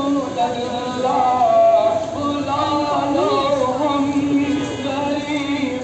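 Voices singing an Urdu devotional song (naat) in long held notes over a slow melody.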